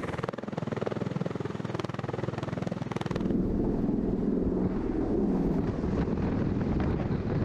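Hovering military rotorcraft: steady rotor and turbine engine noise with a fast, even blade beat, turning louder and heavier about three seconds in, heard at the open door above a fast rope.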